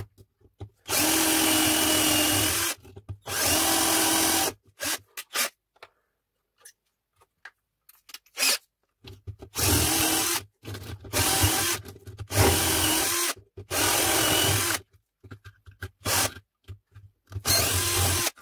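Cordless drill drilling out the metal rivets of a household circuit breaker's casing, run in repeated bursts of one to two seconds with pauses between them, with small clicks and handling noise in the gaps.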